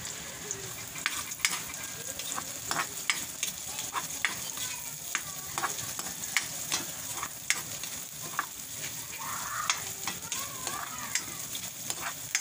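Sliced onion and garlic sizzling in hot oil in a wok, with a metal spatula scraping and clacking against the pan as they are stirred, in irregular sharp strokes over the steady sizzle.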